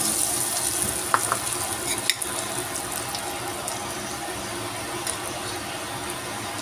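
Beaten egg for an omelette frying in hot oil in a wok: a steady sizzle that slowly eases as the egg sets. There are a couple of light clicks about one and two seconds in.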